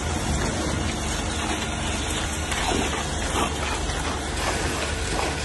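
Concrete pump truck running steadily at a concrete pour, a constant low hum under a hiss like heavy rain.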